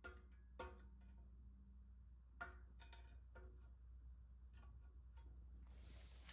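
Near silence: low steady hum with a few faint, scattered clicks and taps.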